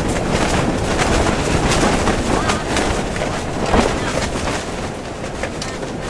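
Strong storm wind buffeting a tent, heard from inside: a continuous rushing with the fabric flapping and snapping over and over.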